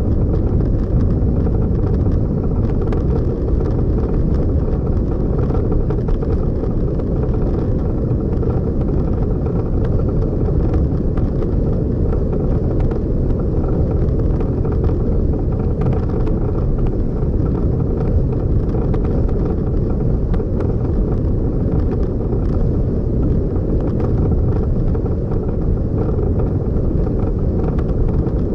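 Steady low rumble of a vehicle driving: engine and road noise at an even pace, with no change in speed.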